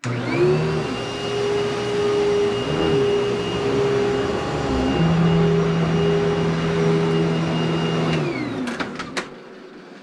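Vacuum cleaner switched on, its motor spinning up to a steady high whine over a lower hum and running for about eight seconds. It is then switched off and winds down with a falling whine, with a few sharp clicks as it stops.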